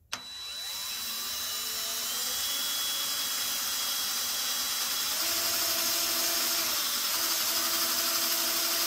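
DeWalt 20V cordless drill running steadily with a faint whine, driven slowly as its bit cuts a starter divot into steel plate, dry before the cutting fluid goes in.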